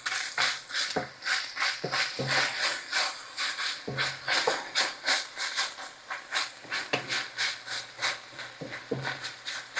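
Diced bacon sizzling and crackling in a frying pan as a wooden spoon stirs and scrapes it, the hiss swelling and falling with each stroke. The bacon is frying slowly on turned-down heat to render out its fat and crisp up.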